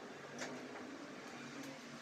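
Faint eating sounds: a single soft click about half a second in, over a low steady hum.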